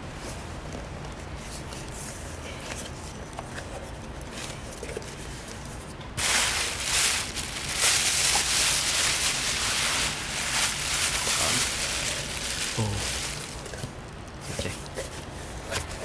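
Plastic packaging rustling and crinkling loudly for about seven seconds in the middle, with light clicks and small handling noises before and after, as a drone part is unpacked.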